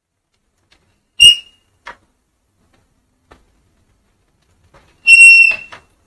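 Honda CD 70's drum brake shoes squealing twice: a short, high squeal about a second in and a longer one near the end, with a few faint clicks between. The squeal is the common brake-shoe noise that comes on in wet weather.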